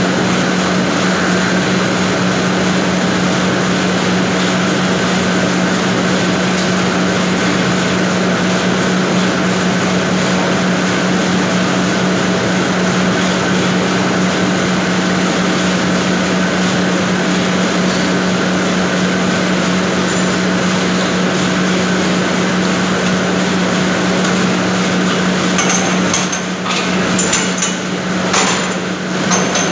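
Plastic film production line running: a loud, steady machine noise with a constant low hum. A few sharp knocks come near the end.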